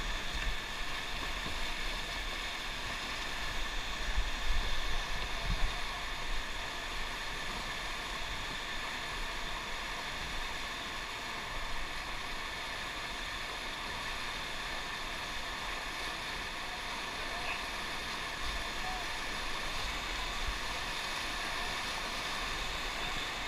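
A motorboat running steadily under way, with the rush of water along the hull and a faint steady whine over it. Wind buffets the microphone in gusts during the first few seconds.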